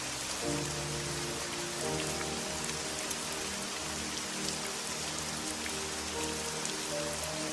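Steady rain with scattered drop ticks, over soft music of low held notes that change every second or so.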